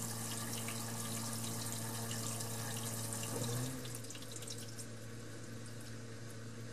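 KitchenAid dishwasher's drain pump running with a steady hum while waste water rushes through the drain line, draining without leaks. The water sound eases a little about four seconds in.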